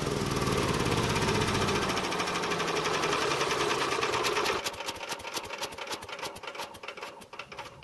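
Predator 301cc single-cylinder four-stroke engine running with a fast, even beat, then switched off about four and a half seconds in. It coasts down with slower and slower dying pulses until it stops.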